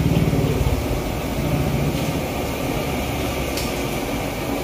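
Gas wok burner running under a wok, a steady low rumble with a fast flutter. A single light clink about three and a half seconds in.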